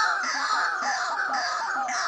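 White-breasted waterhens (ruak-ruak) calling: a loud, unbroken run of harsh, repeated notes at about four to five a second.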